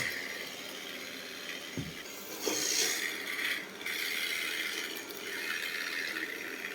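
Roborock S7 MaxV robot vacuum running with a steady mechanical whir, a low thump about two seconds in, and a louder stretch after that.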